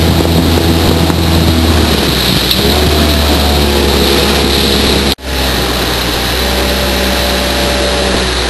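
Motorboat engine running steadily at speed, mixed with a loud rush of wind and water noise; the sound breaks off for a moment about five seconds in, then resumes.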